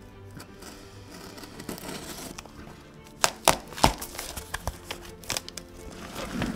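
A package being unwrapped by hand: packaging crinkling and rustling, with a run of sharp cracks and snaps about halfway through, over quiet background music.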